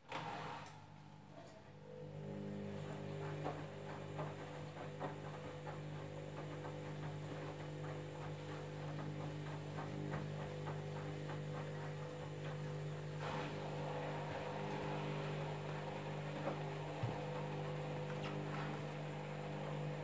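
Candy washing machine's drum motor kicks in and hums steadily while the drum turns during a jeans cycle, with many light clicks and knocks from the tumbling load.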